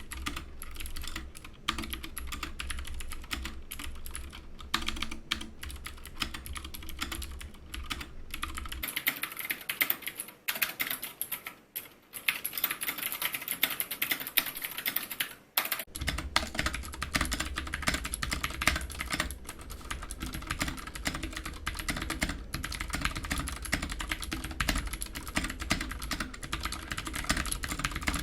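Keychron K6 mechanical keyboard with clicky Gateron Blue switches and PBT keycaps, typed on quickly and continuously: a dense, steady patter of sharp key clicks.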